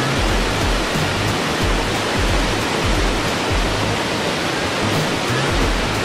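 Steady rush of water falling down a multi-tiered cascade, with background music's low bass line underneath.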